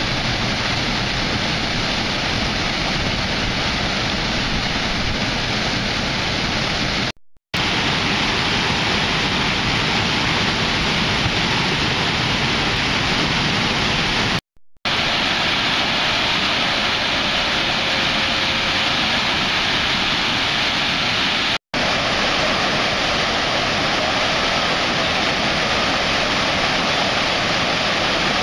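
River water rushing steadily over a low concrete weir. It is a loud, even sound that cuts out for a moment three times.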